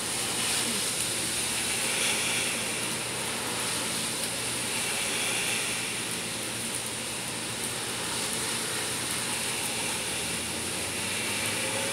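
Steady rushing background noise with a low hum, swelling and easing slightly over the seconds.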